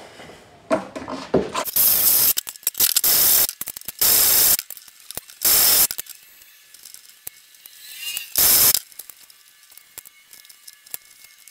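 Cordless drill run in several short bursts with a 1/2 inch bit, wallowing out a drilled hole in a truck running board's flange to widen it.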